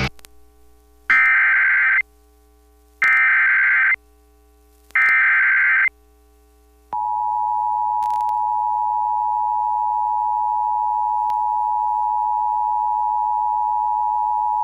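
Emergency Alert System activation: three short bursts of screeching SAME header data tones, then a long, steady alert tone announcing a severe thunderstorm warning.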